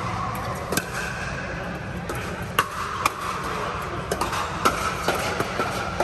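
Pickleball paddles hitting a plastic pickleball: sharp, short pops about once or twice a second as a rally is played, over a steady background hum.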